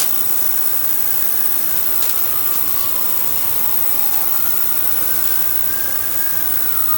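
Steady machine noise, even and unbroken, with a faint tone that slowly drifts down and back up in pitch.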